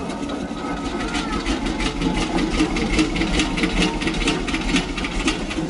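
Old machinery running with a steady rhythmic clatter, about three or four beats a second, over a low hum.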